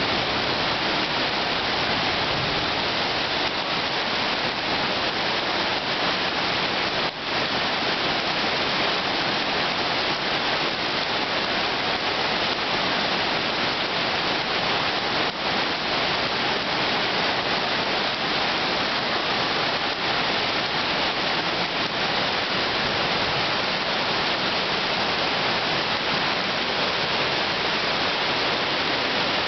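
Torrential rain falling with floodwater rushing across a road and pouring down steps: a steady, dense rushing hiss of rain and running water, from a flash-flooding cloudburst.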